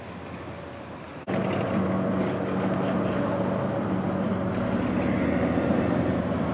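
FV434 armoured repair vehicle driving on its tracks, its Rolls-Royce K60 multi-fuel engine running with a steady drone. The sound jumps louder about a second in.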